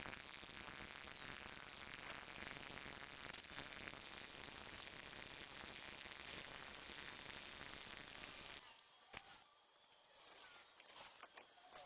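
Electric welding arc, running steadily as a high hiss for about eight and a half seconds, then cutting off abruptly as the weld stops.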